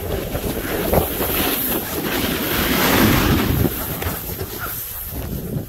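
Wind buffeting a handheld phone's microphone during a downhill snowboard run, with the board sliding through snow. The rushing is strongest around three seconds in and eases after that.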